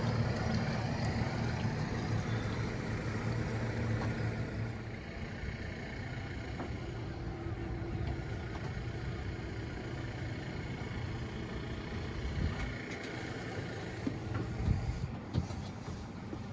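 Twin Yamaha outboard engines idling steadily, a low hum that is strongest in the first few seconds and fainter after. A few knocks near the end.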